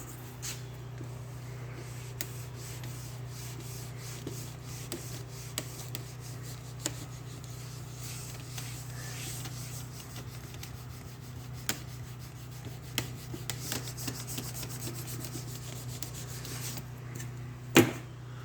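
Sandpaper rubbing over a fiberglass boat surface by hand, continuous, over a steady low hum, with scattered light taps and ticks.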